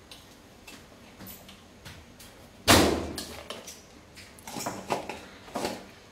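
A metal spoon knocking against an aluminium soup pot: one loud clank about three seconds in, then a few lighter taps near the end.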